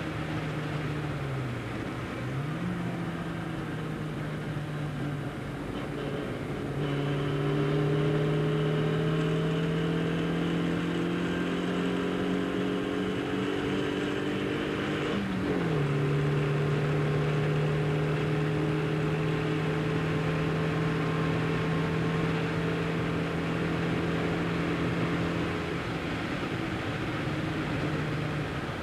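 Tuned 1275cc A-series four-cylinder engine of a 1969 Austin-Healey Sprite with a large-bore exhaust, heard from inside the car as it drives hard. Its note climbs slowly, drops sharply at an upshift about halfway, then holds and eases off near the end, over a steady hiss of wind and wet tyres.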